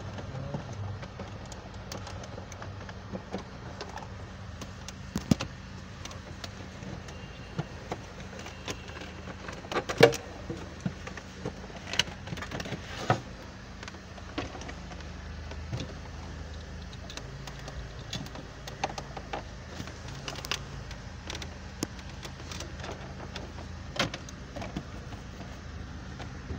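Scattered clicks and knocks of dashboard trim and hand tools as a Land Rover's dashboard is taken apart, the sharpest knock about ten seconds in, over a steady low hum.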